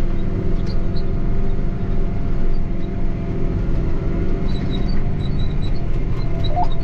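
Tractor engine running steadily while pulling a seeding implement, heard from inside the cab: an even low drone with a thin steady whine above it.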